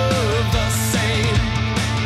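Rock music with a steady beat: bass and drums under a wavering lead melody.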